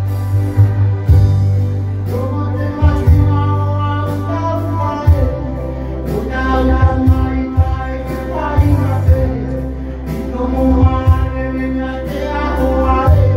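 A man sings into a microphone over his electronic keyboard, which plays chords with a heavy bass line and a steady beat.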